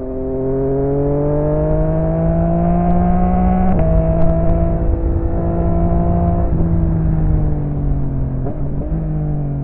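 Yamaha XSR900's inline three-cylinder engine through an M4 aftermarket exhaust, heard from the bike while riding: it pulls up in revs for about four seconds, shifts up with a sudden drop in pitch, holds, then the revs fall away as the rider rolls off, with a couple of short shifts near the end. Low wind rumble runs underneath.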